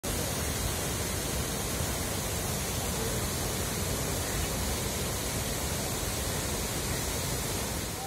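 Wide waterfall in full flow, pouring over rock shelves: a steady, even rush of water.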